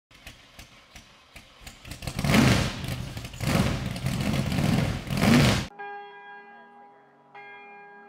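Intro sound over the channel logo: a run of even ticks, then three loud rushing surges that cut off suddenly, followed by ringing bell tones.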